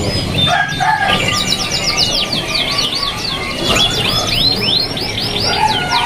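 Many caged songbirds, canaries among them, chirping and singing at once in a dense chorus of fast, high, down-sweeping notes, with a run of quick rising notes about four seconds in.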